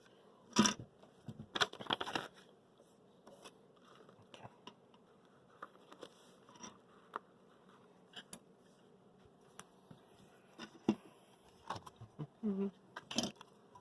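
Irregular light clicks, taps and rustles of small parts and packaging being handled, louder and closer together near the start and again near the end.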